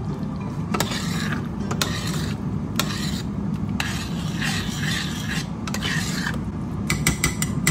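A spoon stirring tomato sauce in a stainless steel pot, scraping and rubbing against the pot again and again, with a few quick clicks near the end.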